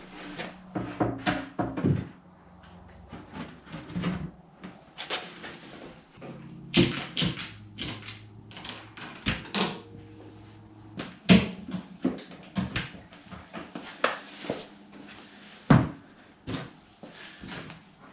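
Irregular knocks and thumps of a wooden outer wall board being handled and set against a camper's wooden wall framing for a test fit, with several louder knocks among lighter taps.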